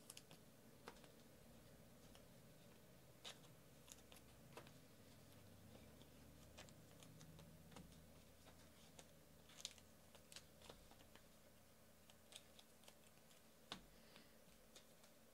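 Near silence: faint room tone with scattered, irregular small clicks and taps.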